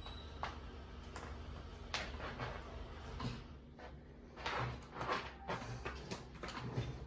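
Irregular scratching and rustling as a kitten's claws grip and scrape on the fabric back of an office chair, with soft knocks, over a low steady hum.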